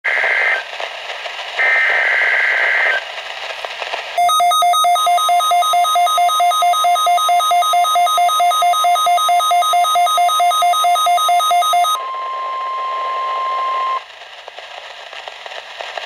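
A Midland weather radio sounding a NOAA Weather Radio Required Weekly Test. First come two short bursts of EAS header data, then the radio's own rapid, evenly pulsing two-tone alert beep for about eight seconds. Then a steady single warning alarm tone plays for about two seconds and cuts off suddenly.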